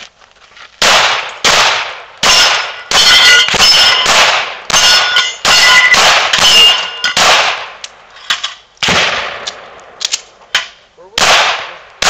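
A rapid string of pistol shots, about fifteen, with a short pause roughly two-thirds of the way through. Many shots are followed by a bright metallic ring as steel targets are hit.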